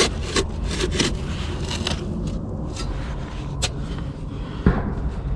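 Wind rumbling on the microphone, with scattered scrapes and knocks.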